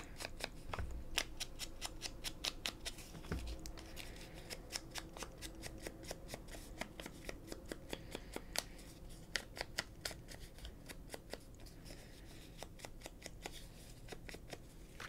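Ink blending tool's foam pad rubbed in quick, repeated strokes along the edges of a piece of old book paper, a soft scratchy brushing several times a second, inking the paper to a grungy look.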